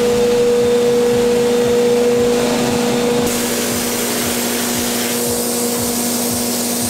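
Drywall texture-spray rig running: a steady motor hum with air hiss from the hopper gun and hose, the hiss growing louder about three seconds in.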